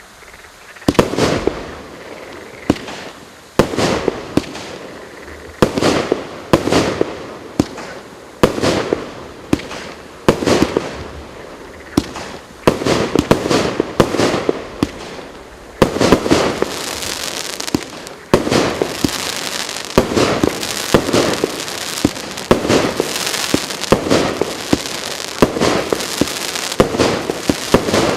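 GP508 "Strength" fireworks battery firing: sharp launch-and-burst bangs every second or two, turning into a denser run of shots over a continuous hiss about halfway through.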